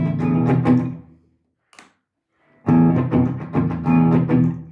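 Electric guitar, a Gibson Les Paul Standard, played through a Marshall JCM800 Studio head and 2x12 cab: two phrases of chords, the first ringing out and stopping about a second in, then a short silence before the second, which fades near the end.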